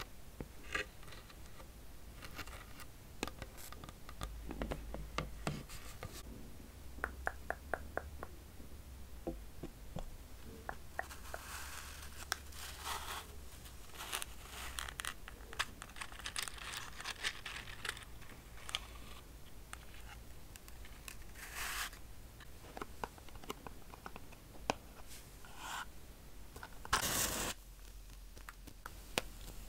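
Fingertips and nails tapping and scratching a polished burl-wood slab, with soft clicks and a quick run of taps. Then a cardboard matchbox is slid open with rustling and rattling, and near the end a wooden match is struck once with a short, sharp scrape that flares into flame, the loudest sound.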